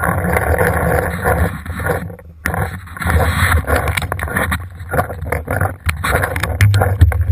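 Wind buffeting and handling rustle on an action camera's microphone as the player moves, a constant low rumble broken by frequent sharp clicks and knocks.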